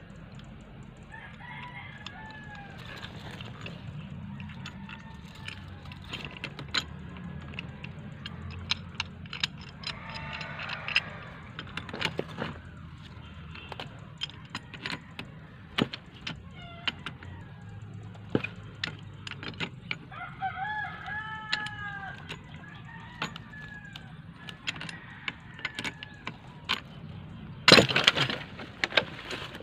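Scattered clicks and knocks of pipe fittings and a water meter being handled by hand, with one loud clatter near the end. Birds call now and then in the background.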